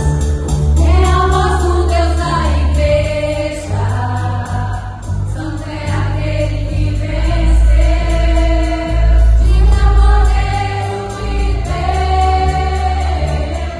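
Gospel song: a choir of voices singing long held notes over a band with a heavy bass line and a steady beat.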